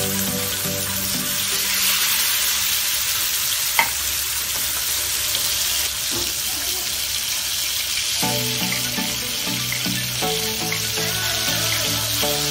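Masala-coated mackerel shallow-frying in hot oil in a non-stick pan: a steady sizzle, with a wooden spatula stirring and scraping as the fish are turned. A single sharp click stands out about four seconds in.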